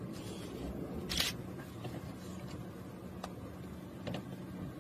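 Vehicle engine running low and steady, with a short scraping rustle about a second in and two faint clicks near the end.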